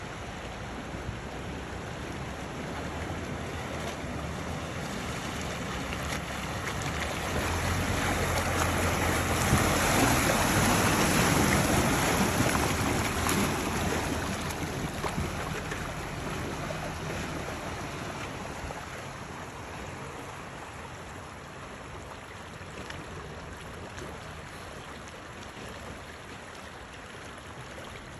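Mercedes-Benz ML320 (W163) SUV wading through a rocky creek: water rushing and splashing around its wheels over the steady sound of the flowing stream, with the low hum of its V6 engine. It grows louder as the SUV passes close, about a third of the way in, then fades as it moves off downstream.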